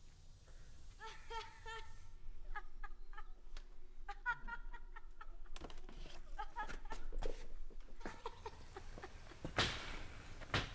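Several bursts of short, pitched animal calls, and one loud thump near the end.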